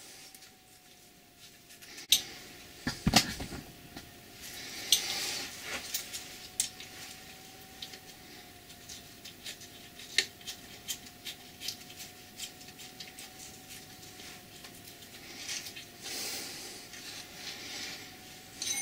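Scattered small metallic clicks, taps and short scrapes of hand work on a lathe saddle, as a felt bed wiper is pressed into place and its small steel retaining plate is handled, with a faint steady tone underneath.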